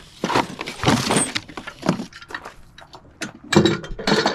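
Cardboard box packaging being handled and pulled out of a box: irregular scrapes and rustles of stiff cardboard, loudest near the end.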